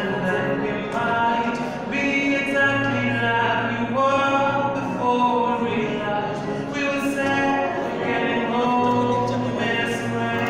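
A man singing into a microphone, amplified through a PA, in long held and gliding notes.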